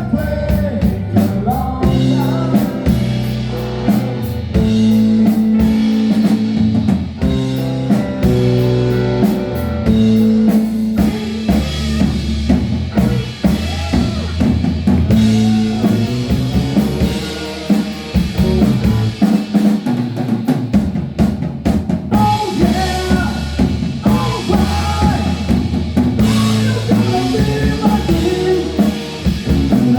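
Rock music with a full drum kit (bass drum, snare and rimshots) under held pitched notes, ending in a run of quick, even drum hits.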